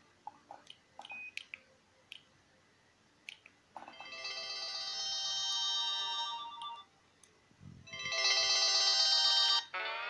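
Light clicks from a mobile phone's keys, then the BenQ-Siemens S68's small loudspeaker plays two short polyphonic MIDI ringtone melodies from a Sony Ericsson J210i, the first about three seconds long and the second, louder one about two seconds long, with a brief pause between.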